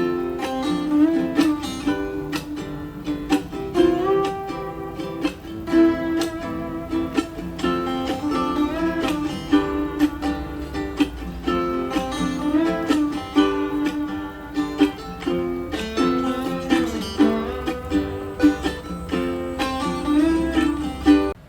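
Instrumental music with a plucked guitar- or ukulele-like melody of quick, repeated notes, played back through a small portable Bluetooth speaker in a sound test. It drops away sharply just before the end.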